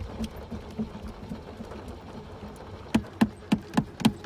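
A car engine cranking on its starter without catching, turning over in a slow even beat of about four strokes a second; the beats grow much louder about three seconds in.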